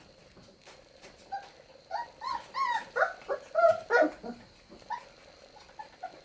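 Young puppies, nearly four weeks old, whining and yelping: a run of short, high calls that rise and fall in pitch, starting about two seconds in and loudest around three to four seconds, then a few fainter whimpers near the end.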